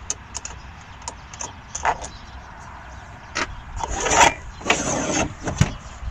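A metal locking rod being unscrewed and drawn out of a van's swivel seat base. There are a few light clicks, then scraping rasps about four and five seconds in as the rod slides out, and a knock near the end.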